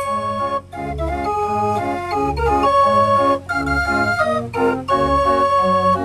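Fair organ playing a tune: its pipes carry the melody and chords over a regular bass note about every two-thirds of a second.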